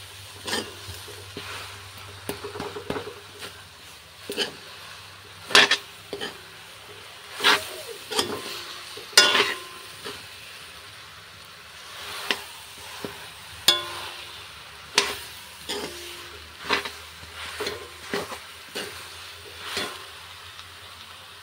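A steel spoon stirring boroi (jujube) pickle with dried red chillies frying in oil in a black iron wok. Under a steady sizzle, the spoon scrapes and knocks against the pan about once a second, irregularly.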